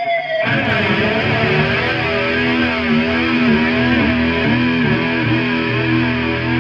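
Electric guitar (2011 Fender American Special) played through distortion and effects pedals into a Hiwatt Maxiwatt 50 amp. A held, distorted note dips slightly in pitch, then a new distorted note or chord is struck about half a second in and sustained with a wavering, effects-laden tone.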